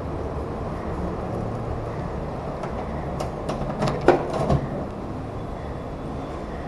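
Steady low background rumble, with a handful of light clicks and knocks between about three and four and a half seconds in, the loudest near four seconds.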